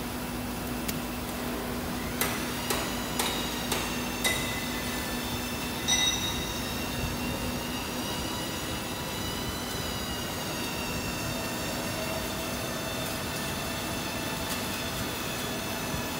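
Spiral wire fan guard making machine running, a steady mechanical hum with several high, thin whining tones. About two seconds in comes a run of five sharp clicks roughly half a second apart, then a louder knock about six seconds in.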